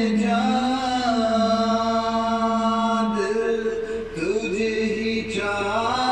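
A man singing, holding long drawn-out notes, with the pitch shifting about three seconds in and again a little after four seconds.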